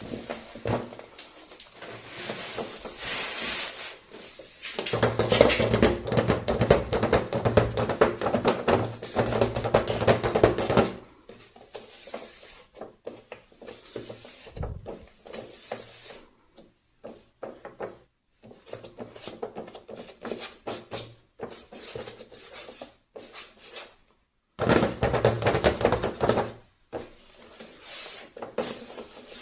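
Hands handling plastic doll packaging and doll parts: rustling, crinkling and tapping in irregular bursts, with two longer stretches of continuous rustling.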